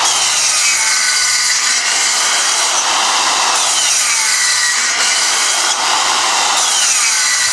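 Corded circular saw running steadily and cutting a series of shallow kerfs across plywood, its whine dipping in pitch and recovering several times as the blade bites into each pass.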